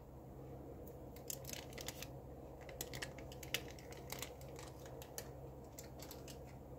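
Baking paper crackling in short, irregular clicks as it is peeled off the top of a baked sponge cake. The loudest crackle comes about three and a half seconds in, over a steady low hum.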